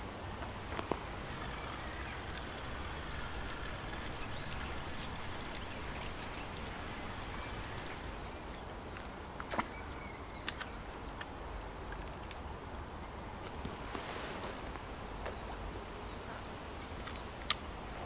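Steady outdoor background noise with faint bird chirps and a few short, sharp clicks.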